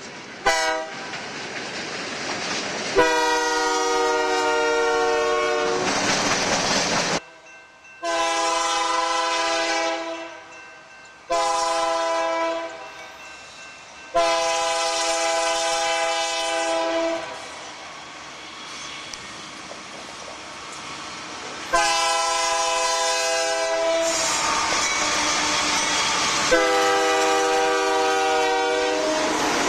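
Nathan K3-series five-chime locomotive air horn sounding a long, long, short, long pattern, the grade-crossing signal, then starting the pattern again with two more long blasts. Train and rail noise runs between the blasts.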